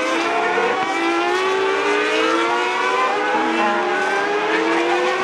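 Race car engines at high revs accelerating, the pitch climbing and dropping back again and again as they shift up through the gears, with more than one car heard at once.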